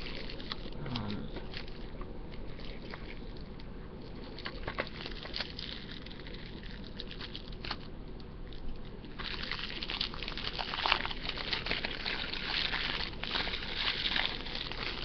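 Coffee percolator perking, a continuous bubbling and gurgling of water with many small clicks and crackles. The crackling grows denser and louder about two-thirds of the way through.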